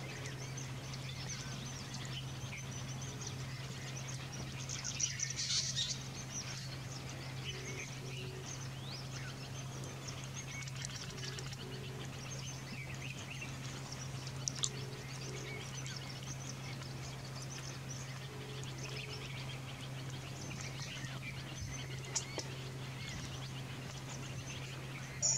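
Birds chirping and calling on and off over a steady low hum, with a brief burst of chirps about five seconds in and a low two-note call that recurs every few seconds.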